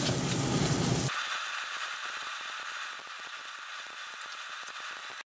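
Pork belly slices sizzling and crackling in a hot wok as their fat begins to render. A low rumble under it drops away about a second in; the sizzle then fades gradually and cuts off abruptly near the end.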